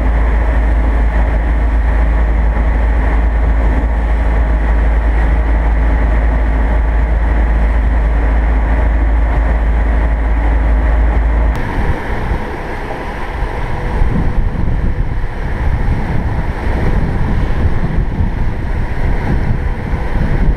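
Sportfishing boat running at speed on open sea: engine drone and the rush of the wake, with wind buffeting the microphone. A little past halfway the steady deep rumble stops abruptly, leaving a rougher, gustier wind and water sound.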